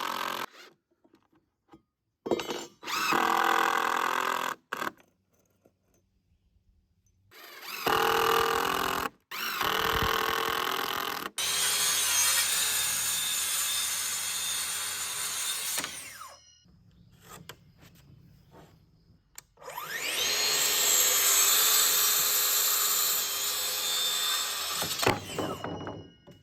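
Cordless drill running in four bursts, the longest about six seconds, driving screws into wooden deck boards; the last burst starts with a rising whine as the motor spins up.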